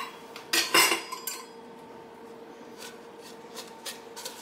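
Kitchen utensils knocking against a cast iron skillet: two sharp clinks close together a little after half a second in, then light scraping as a spatula spreads brown sugar through melted butter in the pan.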